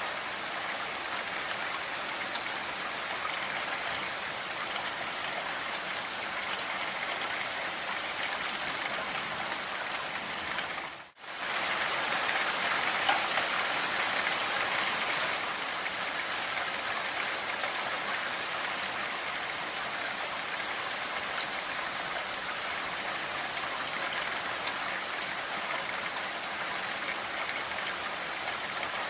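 Steady rain falling, a dense, even hiss of drops. About eleven seconds in it cuts out for a split second, then comes back a little louder for a few seconds.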